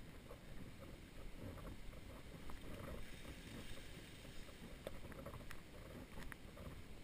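Footsteps on a sand path over a low, steady rumble, with a few faint clicks.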